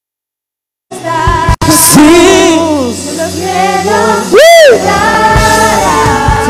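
Live church worship band and singers performing a Spanish-language praise song, cutting in about a second in after silence. Just past the middle one loud sung note rises and falls.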